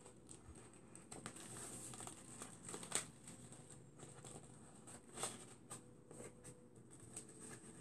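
Faint rustling and crinkling of paper and cardstock being handled as a strip of paper is wrapped around a small cardstock tube and pressed down, with a couple of short sharp ticks, the loudest about three seconds in and another about five seconds in.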